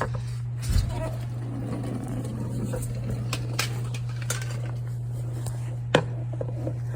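Hand tools clicking and knocking on metal: a low knock about a second in, a few sharp clicks in the middle, and a louder sharp click near the end, over a steady low hum.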